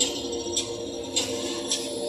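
Music from a light-projection show's soundtrack: a jingling, tambourine-like hit about twice a second over held tones.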